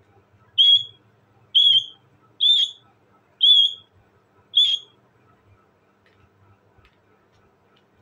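Indian ringneck parakeet giving five short, high-pitched calls, about one a second, then falling silent.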